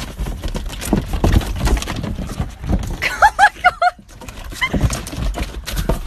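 A cat scrambling and thrashing inside a car, its body knocking and thumping against the seats and door. About three seconds in comes a quick run of five short squealing cries, with one fainter cry a second later.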